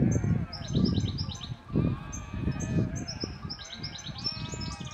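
Small birds chirping over and over in quick, short calls above an uneven low rumble, with a flock of sheep and goats bleating faintly now and then.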